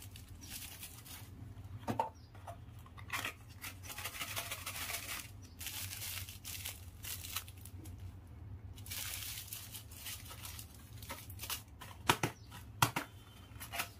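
Thin plastic packet of snap-pop crackers crinkling and rustling as it is handled in the hand, with some tearing-like rustle. Near the end a few sharp clicks come as a small cardboard box is handled and opened.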